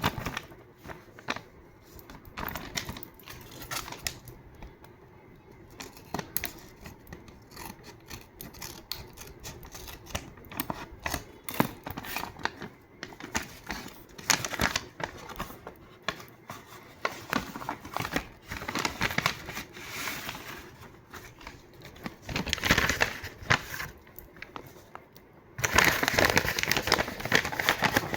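Paper being handled and cut with scissors: scattered snips, clicks and rustles, with a louder stretch of steady paper crinkling near the end.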